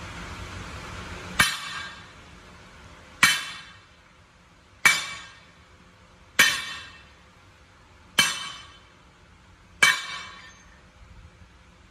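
Hammer striking steel six times at an even pace, about one blow every second and a half, each blow ringing out briefly with a bright metallic tone.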